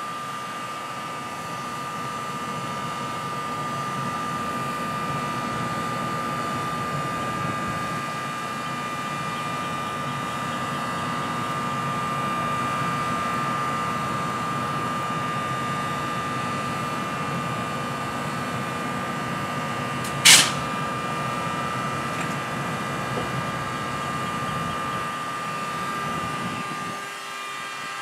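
NJ Transit ALP-46A electric locomotive standing at the platform, its equipment giving a steady hum with a steady high whine. About twenty seconds in comes one short, sharp burst of noise, the loudest sound. Near the end the low part of the hum drops away.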